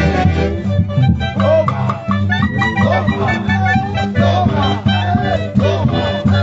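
Peruvian huaylarsh (pulún huaylarsh) played by a live dance orchestra, several melody instruments over a steady, pulsing bass beat.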